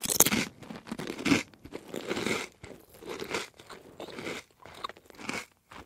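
Crunching sounds like bites and chewing, in short noisy bursts about once a second.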